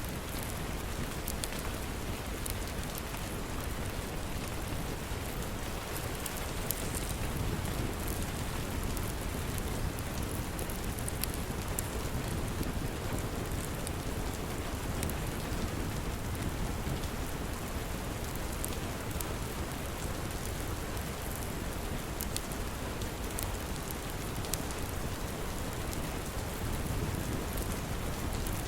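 Steady rain with a low rumble, mixed with a fireplace log fire giving scattered sharp crackles.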